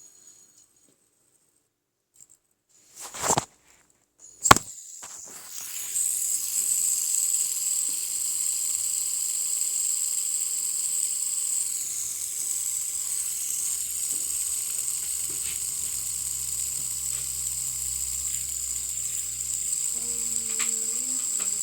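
Fidget spinner handled with two sharp clicks a few seconds in, then flicked into a spin: a steady high-pitched whir from its ball bearing that runs on without letting up.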